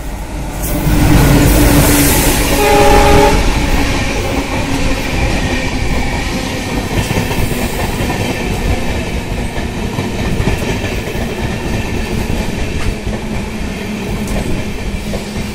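A locomotive passes close on the next track and gives a short horn blast about three seconds in. Its line of passenger coaches then rolls steadily past, wheels rumbling and clattering over the rail joints.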